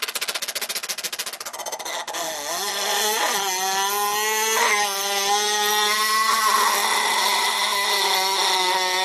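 A man vocally imitating two Yamaha motorcycles racing side by side, making both engine sounds at once from the two sides of his mouth. It starts with a rapid, even putter for about two seconds, then changes to revving whines that climb in pitch and hold high over a steady lower drone.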